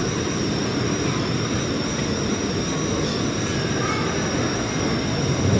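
KiHa 185 series diesel railcar engine idling, a steady low drone with a constant high-pitched whine over it.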